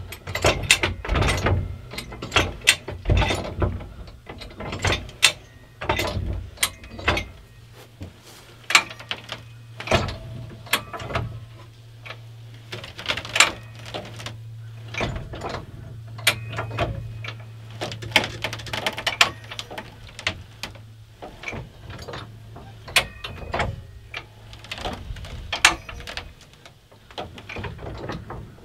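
Farm jack being worked by its handle: repeated sharp metallic clacks and ratcheting clicks from the jack's climbing mechanism on the steel bar, coming irregularly, about one or two a second, as it takes the weight of a pallet building. A low steady hum sits underneath through the middle of the stretch.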